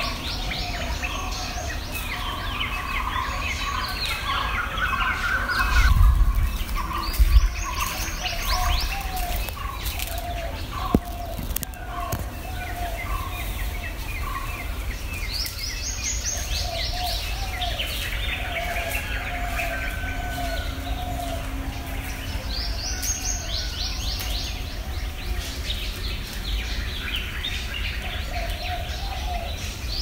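Wild birds singing in a morning chorus: one song of rapid falling high notes repeats about every seven seconds, over a long run of lower evenly repeated notes from another bird. A few low thumps come around six to seven seconds in.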